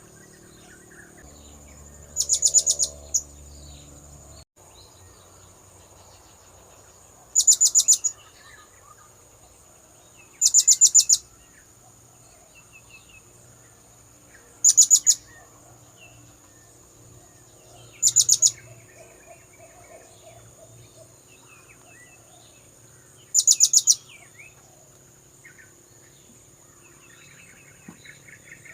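Blue-crowned hanging parrot (serindit) calls used as a lure: six short bursts of rapid, very high-pitched chips, spaced a few seconds apart, over a steady high whine and faint background chirping.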